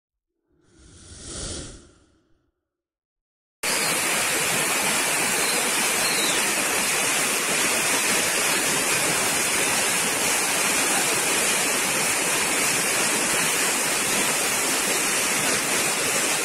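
Heavy rain pouring down onto a concrete lane and leafy plants, a steady, dense hiss that starts suddenly about three and a half seconds in. Before it, a single short whoosh swells and fades near the start.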